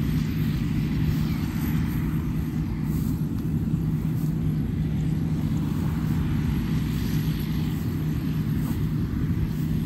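Rice combine harvesters' diesel engines and threshers running steadily as they cut, a low drone with a constant hum that does not change.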